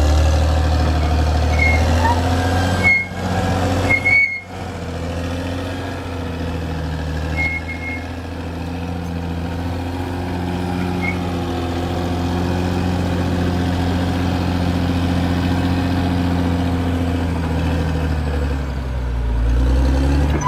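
Caterpillar D6R XL bulldozer's diesel engine running steadily under load as the dozer works, with a few short high squeaks.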